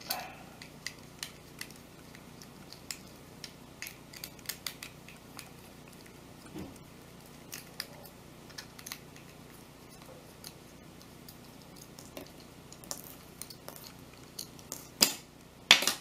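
Small scattered clicks and ticks of a precision screwdriver working tiny screws out of the plastic bottom plate of a Ulanzi OP2 charging base, with two louder clicks near the end as the housing is taken apart.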